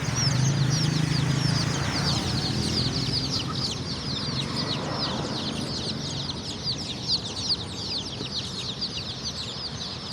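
A crowd of native kampung chicks peeping, a dense and continuous chorus of many short, high, falling peeps. A low hum sits under it for the first couple of seconds.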